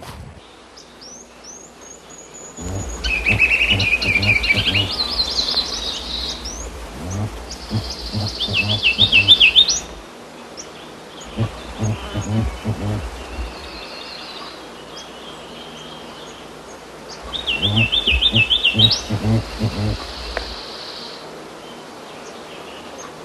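Songbirds singing: high, fast chirping trills in three loud phrases, each with a rhythmic low pulsing beneath it.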